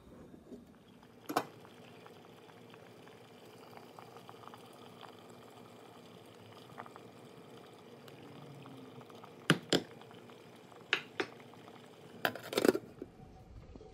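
Water bubbling in a steamer pot, with sharp metal clinks and knocks of pan, pot and spatula: one a second or so in, two pairs past the middle and a louder cluster near the end.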